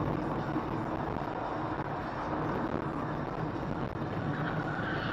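Steady engine and road noise heard inside a moving car's cabin, even throughout with no sudden sounds.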